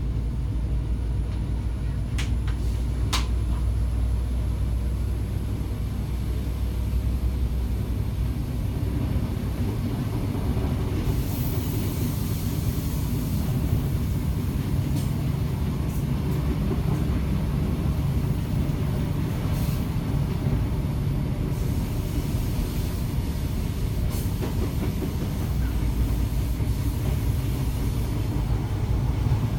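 Diesel railbus running along the line: a steady low engine and running rumble, with a few sharp clicks. A brighter hiss joins for about ten seconds in the middle.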